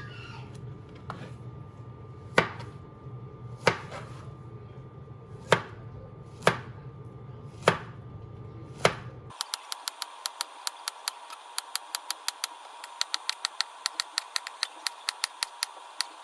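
Knife slicing a ripe plantain on a cutting board, each cut a sharp click about once a second over a low hum. About nine seconds in the sound turns thinner and the cuts come in a fast run, several a second.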